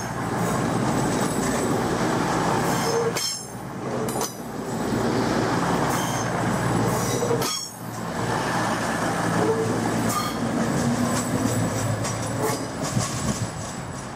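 A train moving along the rails, with a continuous rumble and steady low hum and its wheels squealing briefly on the track several times.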